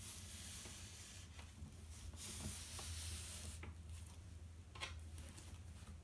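Hands rubbing and smoothing cross-stitch fabric stretched on a scroll frame: two long swishes over the first three and a half seconds, then a couple of short brushing strokes.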